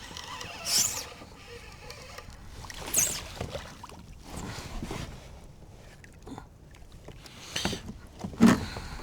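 Water splashing sharply four times beside a kayak as a hooked pike thrashes at the surface, the last splash the loudest, over a low wash of wind and water.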